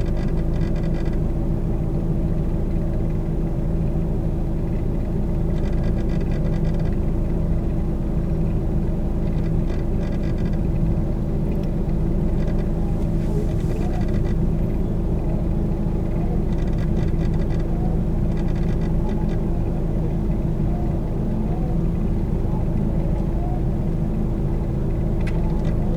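A car idling at a standstill, heard from inside the cabin as a steady low rumble with a constant hum. Faint ticking comes through briefly a few times.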